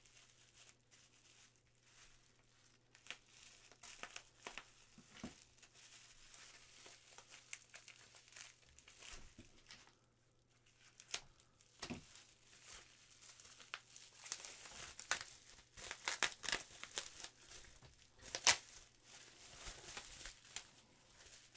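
Clear plastic bag and bubble wrap crinkling and rustling as they are cut with scissors and peeled off a resin model part. Faint scattered crackles, busier and louder in the second half, with one sharp crackle near the end.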